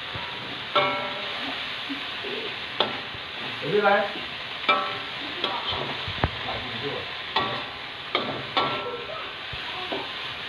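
Fern shoots sizzling in hot oil in a metal wok while being stir-fried with a metal spatula, which scrapes and clanks against the wok about once a second, each clank ringing briefly.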